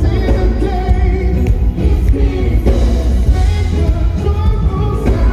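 Music with singing over a heavy bass.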